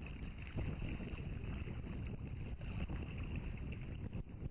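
Wind buffeting the microphone over open water: an uneven, gusty low rumble.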